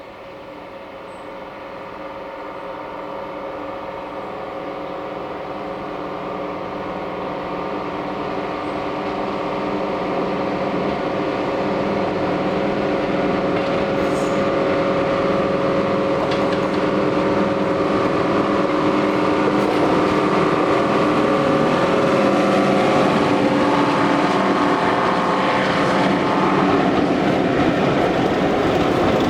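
Diesel locomotive's engine working hard under load at a steady pitch, growing steadily louder as the train approaches.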